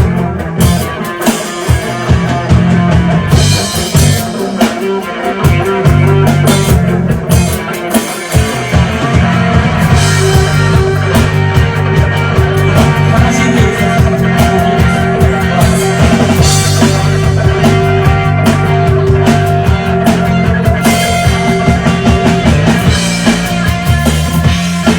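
Rock music played by a band: drum kit and guitar over a steady low bass line, with the drums dropping out briefly near the start.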